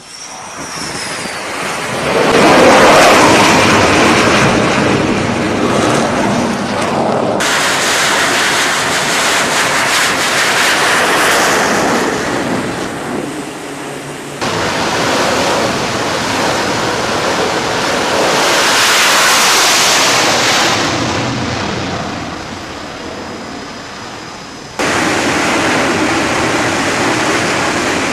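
Fighter jet engines running at high power, a loud steady rushing roar that swells and fades twice as jets pass and launch. The sound changes abruptly three times where separate clips are spliced together.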